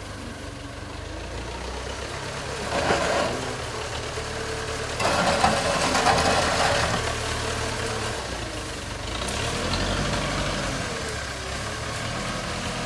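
JCB 3CX backhoe loader's diesel engine running steadily, with two louder noisy surges about three seconds in and again from about five to seven seconds in, as the machine works.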